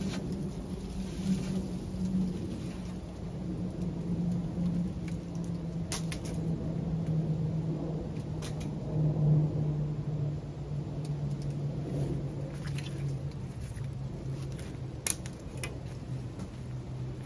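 A low, steady hum that slowly falls in pitch, with a few sharp clicks and taps from handling the greenhouse roof panels.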